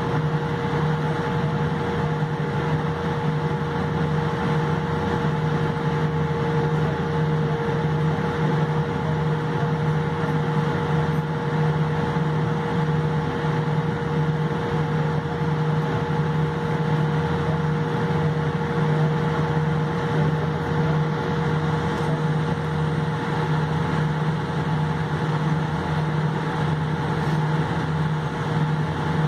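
Steady cabin hum of a Boeing 787-8 airliner taxiing with its jet engines at low power, with a few steady tones in it.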